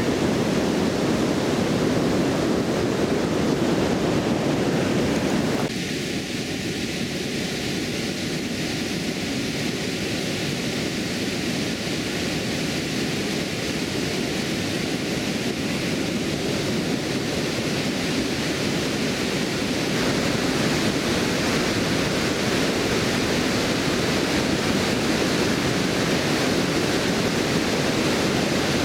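Steady rush of river water pouring over a weir. Its tone changes abruptly about six seconds in and shifts back about twenty seconds in.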